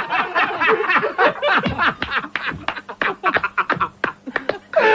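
People laughing hard in rapid bursts of chuckling, easing off in the second half.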